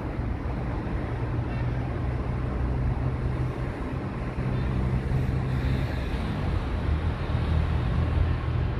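Street traffic with a motor vehicle's engine running steadily close by, a low hum that grows a little louder in the second half.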